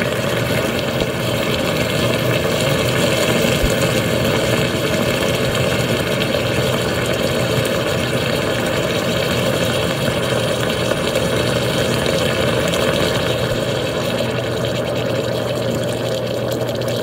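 9Barista stovetop espresso machine boiling steadily in its boiler: a smooth, even rushing with no pops or spits, while brewed coffee is pushed up into the top carafe. Its coil and upper chamber have been scuffed with sandpaper to give nucleation sites, which the owner credits for the smoother boil without water spitting out.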